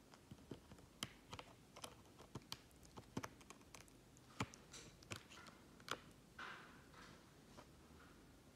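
Faint, irregular sharp clicks and taps, roughly one or two a second, as a cat rubs and bumps its face against the hard edge of a tablet. The clicks stop about six seconds in and give way to a soft rustle.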